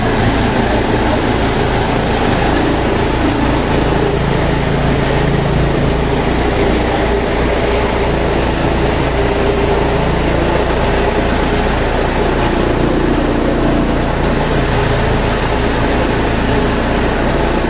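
Tractor-driven chaff cutter running steadily under load as green fodder stalks are fed in and chopped: a continuous loud mechanical din of the tractor engine driving the cutter blades and blower through the PTO shaft.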